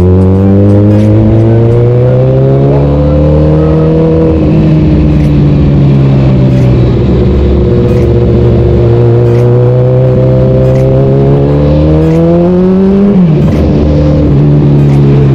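Kawasaki ZX-14R's inline-four engine under way: the revs climb over the first few seconds, ease off, then climb again until they drop sharply about 13 seconds in, as at an upshift, and hold steady after. A steady rushing noise runs under the engine.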